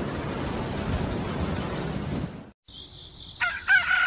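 A steady rain-like hiss that cuts off about halfway. A nature-ambience sound effect follows: crickets buzzing steadily and a loud bird call near the end.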